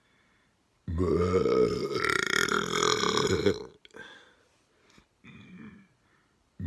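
A person burping deliberately: one long, loud, low-pitched burp starting about a second in and lasting nearly three seconds, followed by two shorter, much fainter ones.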